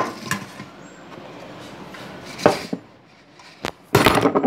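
Occasional light knocks and clinks of a stainless steel plate as dough is rolled on it by hand. Near the end comes a louder, dense clatter of rapid knocks and rubbing.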